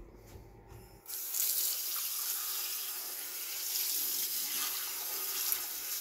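Kitchen faucet turned on about a second in, its stream running steadily onto a glass pour-over filter cone and into the sink as the cone is rinsed.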